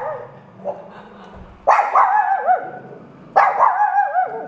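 Dog giving high, wavering whining cries of excitement: a short yelp under a second in, then two long warbling cries of about a second each. The excitement is at its owner coming home.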